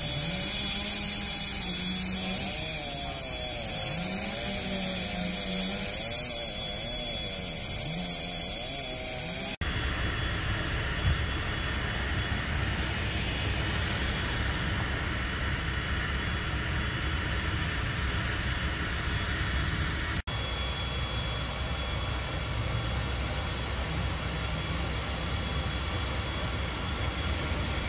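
A motor revving up and down in repeated swells, then steady rumbling noise.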